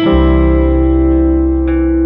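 Background music on guitar: a chord struck at the start and left ringing, with a few more notes added near the end.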